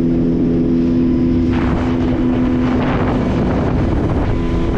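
Outboard motor of a small boat running at steady cruising speed, a constant-pitched drone under the rush of wind on the microphone and water along the hull. The rushing noise grows louder for a second or so near the middle.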